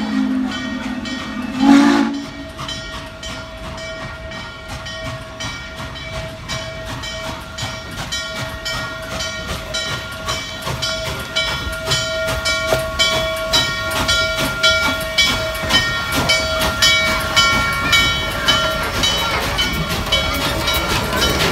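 Norfolk & Western 611, a J-class 4-8-4 steam locomotive, sounds two short low blasts on its whistle, one right at the start and one about two seconds in, then its exhaust beats in an even rhythm, growing louder as it approaches and passes close by, over a steady high whine.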